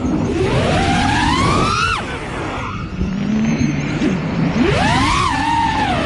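Racing drone's electric motors whining, the pitch rising and falling with throttle: a climbing whine over the first two seconds that drops away, a lower hum, then another rise and dip a little before the end.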